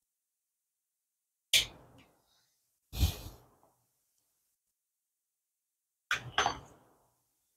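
Short, sharp clicks and scrapes from a metal pick prying at the glued plastic shell of a Samsung Galaxy SmartTag: one about a second and a half in, another about three seconds in, and a quick double click near the end, with silence between.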